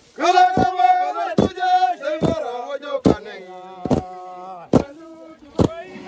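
A group of men strike the ground in unison with long-handled hoes, seven sharp thuds about every 0.8 s, while a man chants over the rhythm, loudest in the first half. The blows are threshing of the harvested crop.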